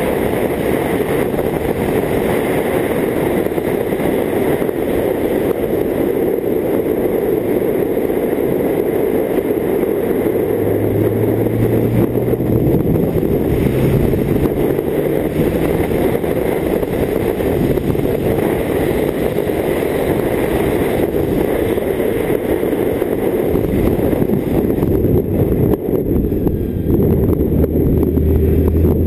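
BMW K1600GT's inline-six engine running under way beneath a steady rush of wind and road noise. The engine note comes through and steps up in pitch a few times around the middle, then again near the end.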